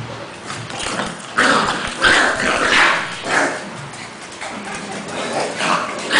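A Pekingese and a two-month-old English bulldog puppy play-fighting, with a run of short, loud dog vocalisations from about one to three and a half seconds in and a few more near the end.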